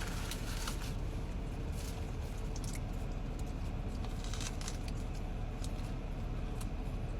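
Wrapper rustling and crinkling in short, scattered clicks as a chicken Caesar wrap is unwrapped and handled, over a steady low hum.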